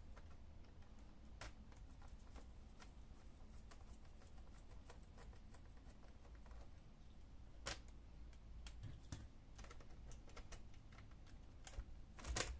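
Faint, scattered small clicks and taps of a screwdriver and hands working on a laptop as the last screw holding its display is undone, with a sharper click about eight seconds in and a couple more near the end.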